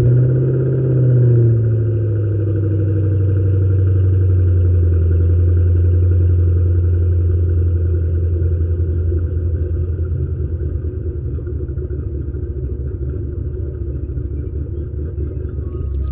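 Ford Mustang GT's 4.6-litre V8 heard from the exhaust just after starting: the revs sit high for the first second or two and drop, then it settles into a steady, loud idle rumble.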